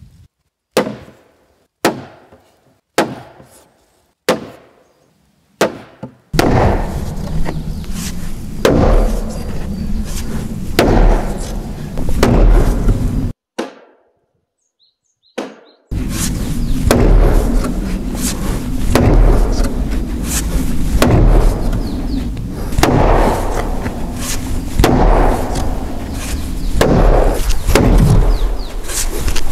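Solid knocks on heavy timber beams, about one a second, each ringing briefly. Then a loud rushing noise with a deep rumble that swells again and again, with knocks heard through it.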